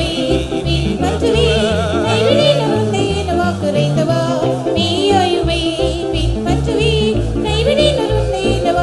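Christian worship song: singing over instrumental music, with wavering melody lines and a steady pulsing bass.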